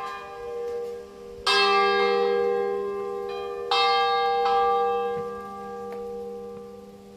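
Hand-rung swinging church bells, a post-war Giacomo Crespi ring from Crema with no electrification, sound a few separate strokes. There are two loud strikes about two seconds apart and a lighter one just after the second. Their long ringing tones then fade away over the last couple of seconds.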